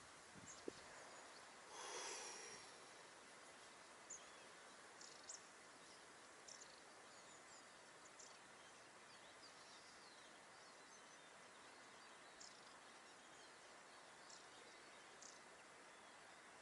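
Near silence: faint outdoor ambience with scattered short high chirps and one brief louder rush of noise about two seconds in.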